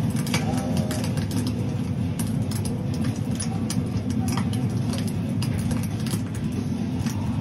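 A steady low rumble of a running vehicle, with scattered light clicks and ticks over it.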